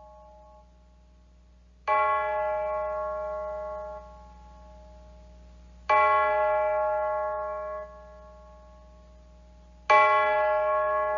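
A bell struck three times, about four seconds apart. Each stroke rings at the same pitch for about two seconds, then is cut off. A faint steady low hum runs underneath.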